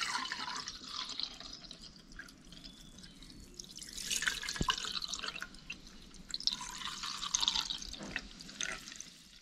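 Solkadhi, a kokum and coconut-milk drink, being poured into steel tumblers, splashing and trickling in about three pours, with a small knock about halfway through.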